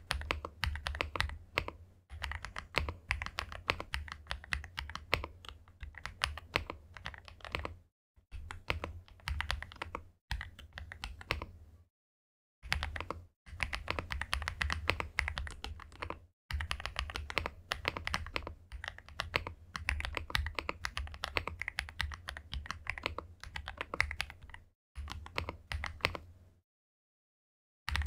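Fast typing on a Weikav WK68 gasket-mount 65% mechanical keyboard with factory-lubed Rouge linear switches and double-shot PBT Cherry-profile keycaps: a dense, clacky patter of keystrokes. It comes in several stretches of a few seconds, each cut off abruptly by a short silence.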